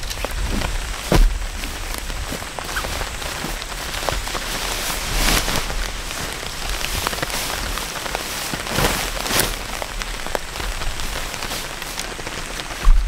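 Steady rain falling on a wet deck, with the rustle and flap of wet tent fabric being pulled out and spread by hand. Wind gusts rumble on the microphone now and then.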